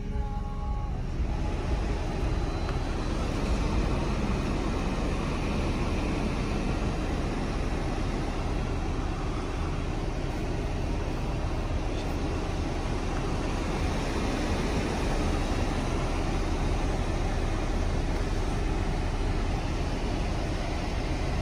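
Steady road and engine noise inside a 2012 Chevrolet Camaro's cabin on the move, after the radio's music cuts off about a second in.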